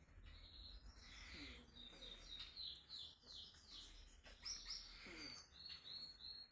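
Pet Indian ringneck parakeet chirping faintly: a quick run of short, falling chirps, several a second, then a few higher calls and more chirps near the end.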